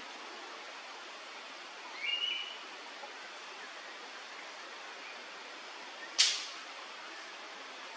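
One short whistled phrase from a banded bay cuckoo about two seconds in, over steady outdoor background noise. A single sharp click about six seconds in is the loudest sound.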